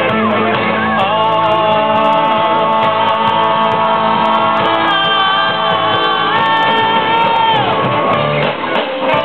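Live band of electric guitars and keyboard playing a song with singers, the music holding long sustained notes that break off about seven and a half seconds in.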